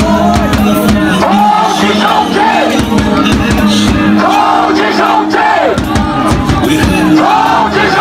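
Football crowd singing a repeated chant with music, the sung phrase coming round about every two and a half seconds over a steady held low note.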